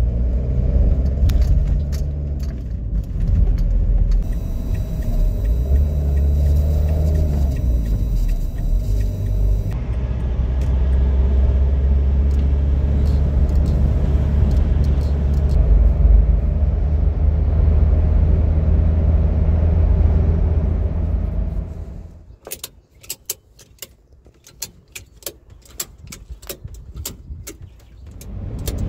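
Car driving: a steady low engine and road rumble. About 22 seconds in it drops away, leaving a run of sharp clicks for several seconds before the rumble comes back.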